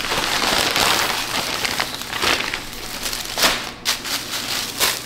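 Package wrapping rustling and crinkling as a parcel of clothes is opened by hand, with a few sharper, louder crinkles about two, three and a half, and five seconds in.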